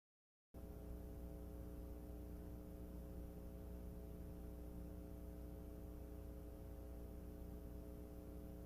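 Faint, steady electrical hum: a low buzz with several steady overtones, starting about half a second in after a moment of dead silence.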